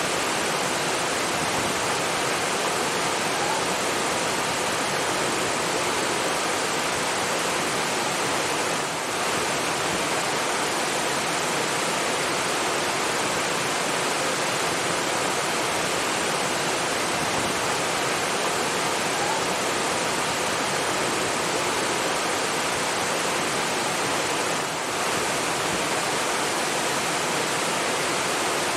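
Rushing water, a steady full hiss like a waterfall or fast stream, unbroken apart from two brief slight dips in level.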